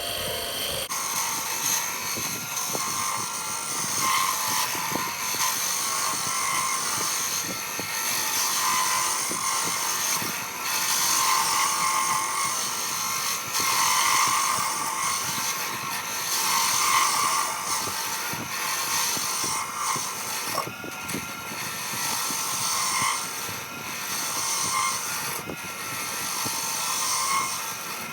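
Wen benchtop wood lathe running while a turning chisel cuts into the spinning wood blank: a steady cutting hiss over the motor that swells and fades as the tool is worked along the piece.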